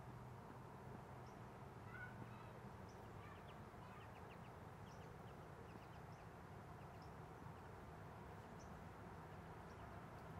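Near silence: faint outdoor ambience with a low steady hum and scattered faint, short high chirps of distant birds.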